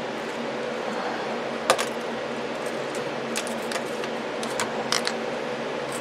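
Clicks and knocks of plastic 120mm case fans being handled and set on a graphics card's heatsink: one sharp knock about one and a half seconds in, then a few lighter clicks. A steady machine hum runs underneath.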